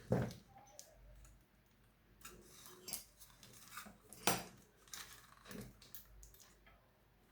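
Irregular metallic clinks and knocks of a spanner and metal parts being handled while a ceiling fan is taken apart, the loudest knocks just after the start and about four seconds in.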